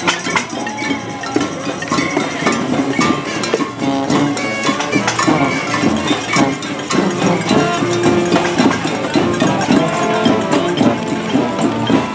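A marching protest crowd making noise: constant clanking and rattling of bells and hand-held noisemakers, with held brass horn notes and shouts mixed in.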